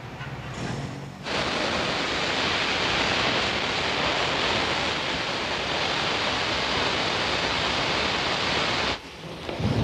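Natural gas gushing out of an uncontrolled oil-field test well: a steady rushing hiss that cuts in suddenly about a second in and drops away near the end.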